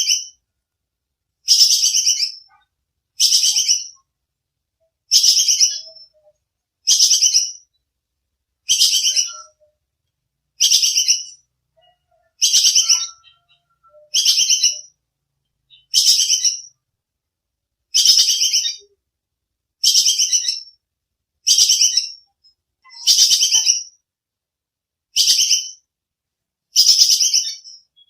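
Squirrel (tupai kekes) giving its sharp, high-pitched chattering call over and over, each call a rapid run of notes under a second long, about every two seconds.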